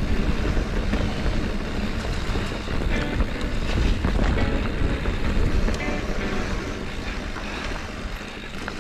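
Mountain bike riding down a dirt trail: a steady rumble of wind on the camera microphone and tyres on the ground, with short rattles and knocks from the bike. The rumble eases slightly near the end.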